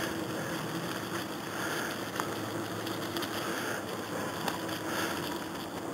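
Wheels rolling steadily over fallen leaves on a dirt trail, with a faint steady hum under the rustle and a few sharp clicks, one about two seconds in and a couple more after the middle.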